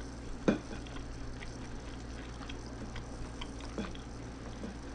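Knife and fork clinking and scraping on a plate while cutting a piece of breaded chicken, with one sharper clink about half a second in and light taps after, over a low steady hum.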